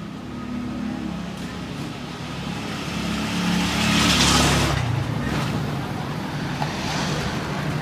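Street traffic: a steady low engine hum, with a motor vehicle passing close by that is loudest about four seconds in.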